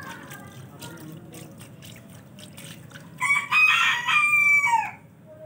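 A rooster crowing once, starting about three seconds in: a loud call of about a second and a half that drops in pitch as it ends. Before it, soft patting and splashing of small hands in a shallow puddle.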